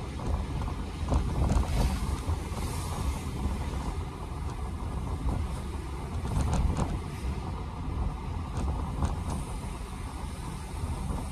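Road noise heard inside a moving car's cabin: a steady low rumble of the car and its tyres on wet, slushy pavement, with a few faint brief knocks.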